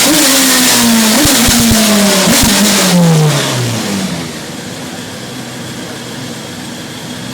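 Radical SR3 1500's engine on the dyno, its revs falling steadily off the throttle at the end of a pull, with a few sharp pops on the overrun. About four seconds in it drops to a much quieter steady running.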